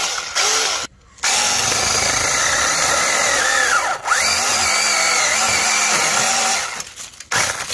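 Muvyee 20-volt 6-inch battery-powered mini chainsaw cutting into a tree trunk. After a couple of short bursts at the start, the motor and chain run steadily with a high whine for about five and a half seconds, dipping briefly in pitch about halfway through. It then stops, followed by a few short bursts.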